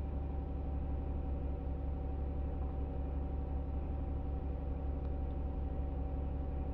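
A steady low hum with a faint, even higher tone held above it, unchanging throughout.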